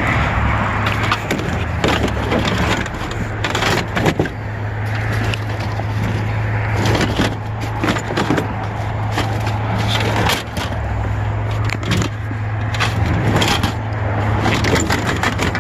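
Curbside junk being handled and loaded by hand: irregular knocks, clatter and scraping of hard objects, over the steady low hum of an idling truck engine.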